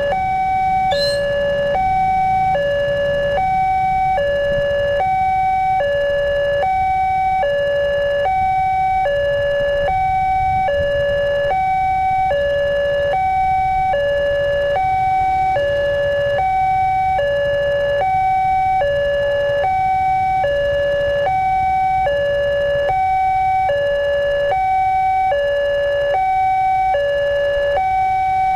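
Electronic warning bell of an Indonesian railway level crossing sounding continuously, alternating steadily between a lower and a higher note in a ding-dong pattern. It signals that a train is approaching and the barriers are down. A low rumble of road noise runs underneath.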